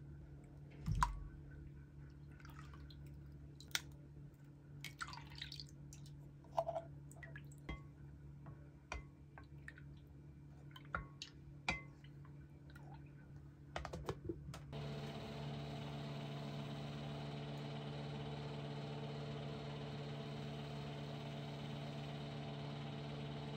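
Wooden spoon stirring milk in a glass bowl: scattered clicks, taps and small liquid sounds, with a low thump about a second in. Near the middle a Klasse microwave oven starts and runs with a steady hum.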